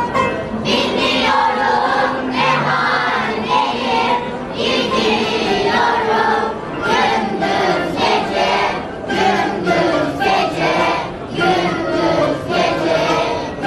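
Children's choir singing a song in unison with instrumental accompaniment.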